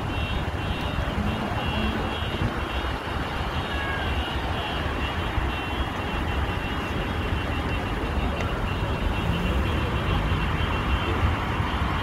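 Steady road traffic noise: a low rumble of vehicle engines and tyres, with a truck passing close near the end.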